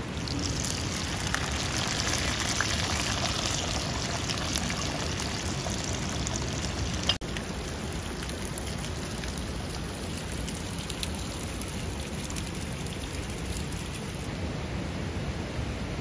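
Fresh okra dropped into hot oil in a pan over a wood fire, sizzling and crackling. After a sudden cut about seven seconds in, a steady hiss of water running down a rock face.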